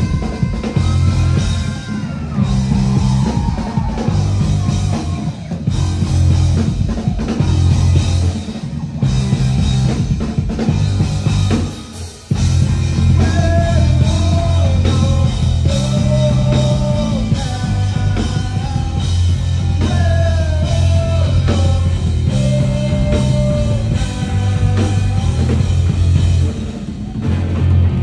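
Rock band playing live: electric guitars, bass guitar and drum kit, with a melody line riding over the steady beat. The music breaks off briefly about twelve seconds in, then comes back in full.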